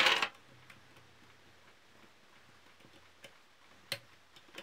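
Hand-fitting of small metal parts on a motorcycle rear brake pedal and footpeg bracket. There is a sharp metal clatter right at the start, then a few light, separate clicks as the pin at the bottom of the pedal linkage is fitted.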